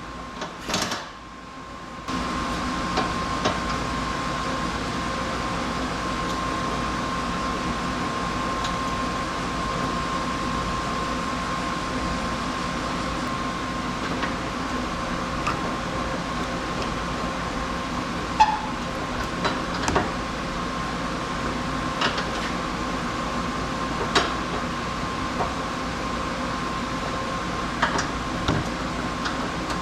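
A steady machine hum with a constant high tone, starting about two seconds in, with scattered sharp clicks and knocks.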